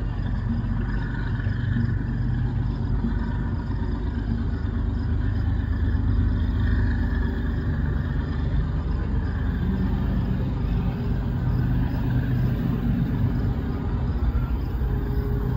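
Steady low rumble of CSX diesel freight locomotives approaching at a distance with a westbound manifest train.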